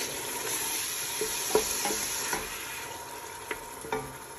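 Tomato and spice masala sizzling as it fries in oil in a stainless steel pot, stirred with a wooden spoon that knocks against the pot about six times. The sizzle eases off near the end.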